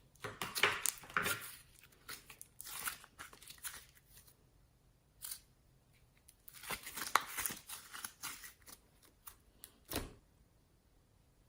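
Homemade slime being handled and mixed, making a run of irregular crackles and sticky clicks. The sounds come in two busy stretches with a near pause between them, and there is a single sharper knock near the end.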